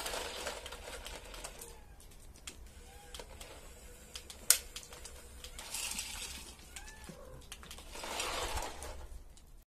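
Quiet outdoor ambience with a few faint, short bird-like calls and scattered light clicks, one sharper click about halfway through.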